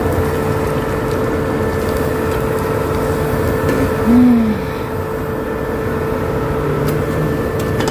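Steady hum and low rushing noise from an induction cooker with prawn crackers frying in hot oil in the pan. About four seconds in comes a brief low tone that rises and falls.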